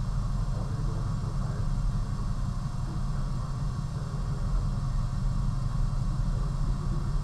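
A steady low machine hum.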